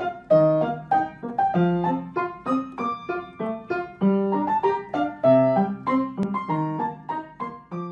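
Piano music: a quick melody of struck notes, each dying away, over a lower line of notes.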